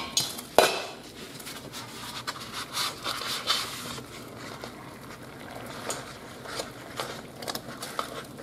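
A metal pot lid clinks twice as it is lifted off a saucepan of boiling water. Raw dough balls (carp boilies) are then tipped off a paper plate into the boiling water, with many small irregular splashes and ticks over the bubbling of the water.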